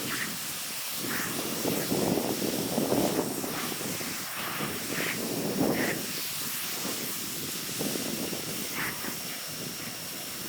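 Sun Joe SPX3000-QW2 electric pressure washer spraying: a steady hiss of the high-pressure water jet, with uneven surges as the spray moves, and a faint thin high tone running under it.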